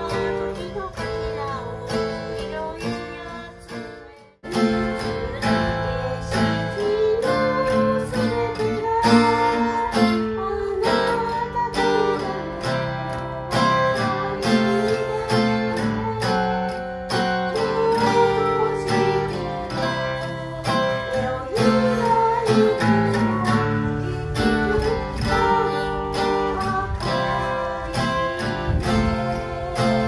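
Acoustic guitar strummed in a steady rhythm with a voice singing a melody over it, a singer accompanying themself on guitar. The sound drops out for a moment about four seconds in, then the strumming and singing carry on.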